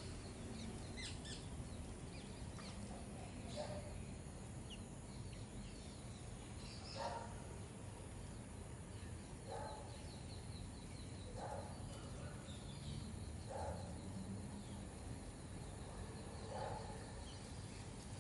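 Birds calling in a garden: a short call repeated about every two seconds, a few high chirps in the first couple of seconds, and a fast high trill in the middle, over a low steady background rumble.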